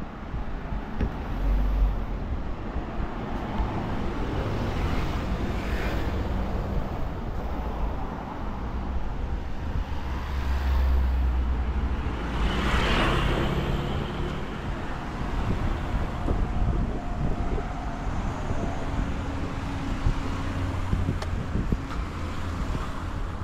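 Road traffic on a busy main road: a steady wash of tyre and engine noise from passing vehicles, with one passing close about halfway through.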